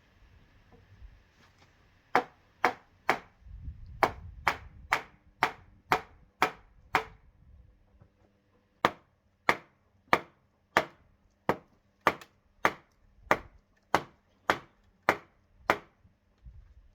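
Sharp blows of a tool chopping into wood, about two a second, about two dozen in all, in two runs with a short pause between them.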